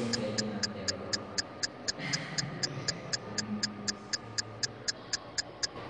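Fast, even ticking, about four ticks a second, each tick short and sharp, stopping shortly before the end, over faint room noise.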